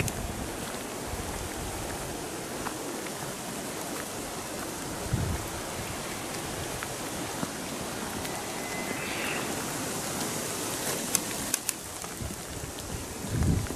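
Steady hiss of light rain, with a few dull low thumps. A brief thin whistle sounds a little past the middle, and a few sharp ticks follow.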